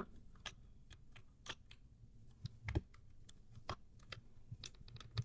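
Faint, irregular plastic clicks and taps as a keycap and then a switch are pried out of a hot-swap mechanical keyboard with a puller.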